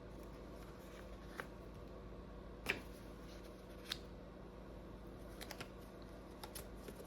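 Faint room hum with a handful of soft, scattered clicks and taps, the loudest a little under three seconds in.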